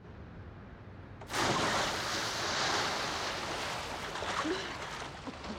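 A body plunging into a swimming pool from a great height: after a second or so of faint hiss, a sudden loud splash, then water churning and sloshing.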